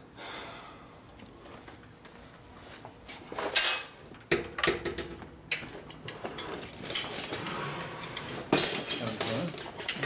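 Wrench and hand tools clinking and clanking against steel while the rear motor mount bolts of a motorcycle frame are tightened. The first few seconds are quiet, then comes a sharp ringing clank about three and a half seconds in, followed by scattered clinks.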